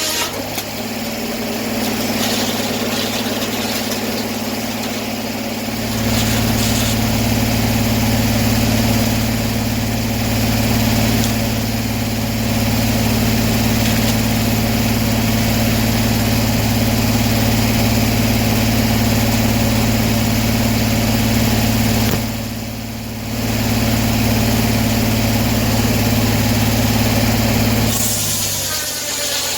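Sawmill's engine running steadily while the mill saws an oak log; the sound grows fuller about six seconds in, drops briefly near the 22nd second, and the engine speed changes near the end.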